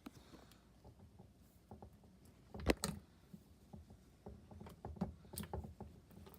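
Homemade slime being handled and squished by hand, with a string of small wet clicks and pops and a sharper knock about two and a half seconds in.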